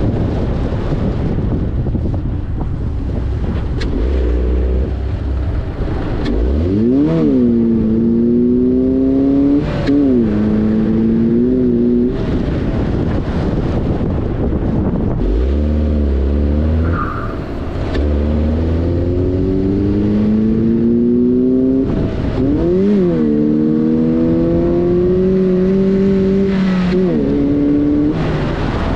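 Volvo car engine with an aftermarket air induction kit, accelerating hard through the gears. The engine note climbs in pitch, then drops sharply at each gear change, several times over.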